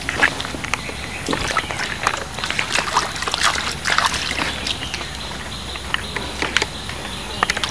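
Wet mud squelching and water sloshing and trickling as hands scoop mud out of a water-filled hole and reach down into it. The sounds are busiest in the first four seconds or so, then thin out to a few scattered wet clicks.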